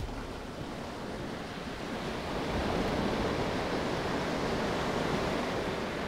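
Sea surf washing up a sand beach and running back, the strong surf left by a passing typhoon. It swells to its loudest about halfway through and eases off near the end.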